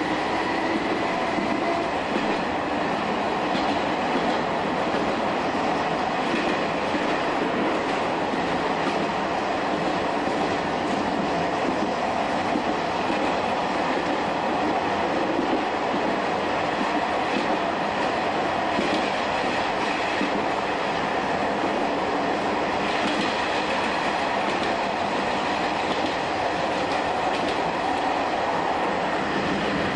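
Shin-Keisei 200 series electric train, an old nose-suspended-motor (tsurikake) type, running steadily along the line as heard from its cab: a continuous drone of motors, gears and wheels on the rails.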